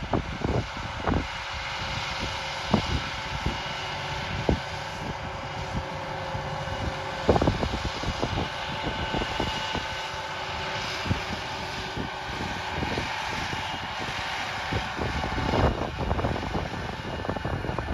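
John Deere 8R 410 tractor's 9-litre six-cylinder diesel running steadily under load while pulling a DB60 planter, a continuous machinery hum. Irregular low thumps, like wind buffeting the microphone, come and go throughout.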